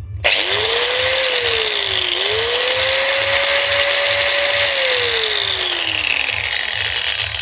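Angle grinder switched on after a bearing replacement: the motor spins up with a rising whine, dips briefly about two seconds in, runs up again and holds steady, then winds down after being switched off. It runs freely, the jammed bearing now replaced.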